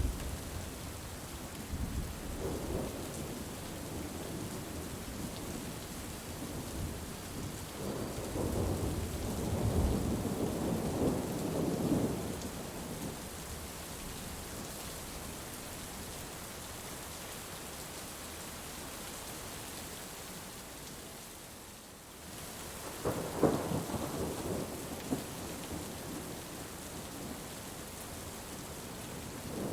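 Steady rain with rolls of thunder: a long rumble swelling about 8 seconds in and a sharper crack and rumble about 23 seconds in.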